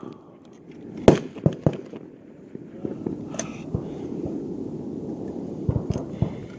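Several rifle shots from competitors along the firing line, single and unevenly spaced, the loudest about a second in and a close pair near the end, slow-fire sighter shots.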